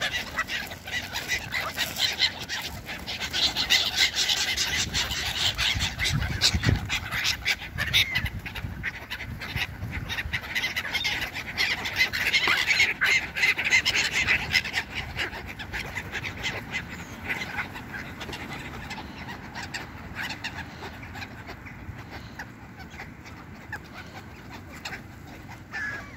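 A flock of black-headed gulls calling over and over with harsh cries, mixed with the flutter of many wings, busiest in the first half and thinning out toward the end.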